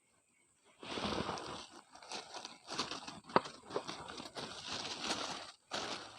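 Rustling and crunching handling noise in irregular surges, with one sharp click about halfway through.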